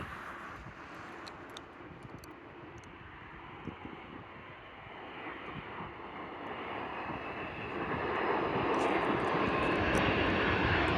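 Jet engines of an Air Canada Boeing 787 airliner, a steady rushing noise that grows steadily louder over the second half as the aircraft comes closer.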